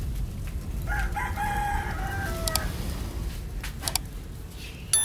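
A rooster crows once, a pitched call of nearly two seconds that drops in pitch at its end, over a low steady rumble. A sharp ringing clink sounds right at the end.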